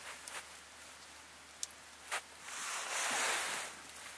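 Wooden chopsticks clicking a few times against an aluminium mess tin, then a rustle lasting a little over a second about two and a half seconds in, the loudest sound here.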